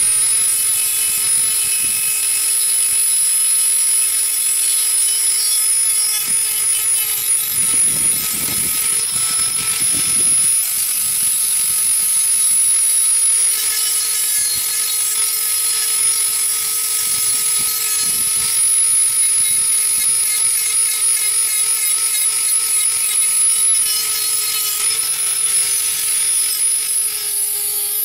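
Dremel rotary tool running at a steady high whine with a small sanding bit, grinding down the rough edge of a circle cut in sheet metal.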